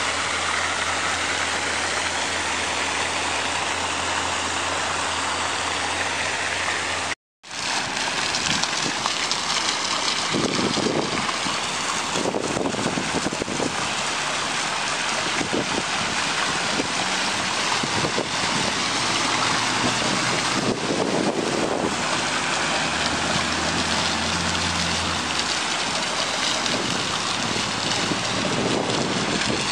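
Fountain jets spraying and splashing into a shallow pool, a steady rushing of water, with a low engine hum of road traffic underneath at times. The sound cuts out for a moment about seven seconds in.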